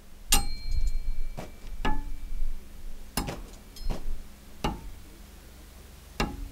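SOG steel throwing knives striking a wooden log-round target, about seven sharp hits spaced roughly half a second to a second and a half apart. The first hit leaves a thin metallic ring that lasts about two seconds.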